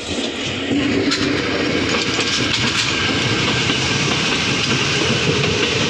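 KRL Commuter Line electric commuter train passing close by, its wheels running on the rails in a steady rumble. It gets louder about a second in, then holds.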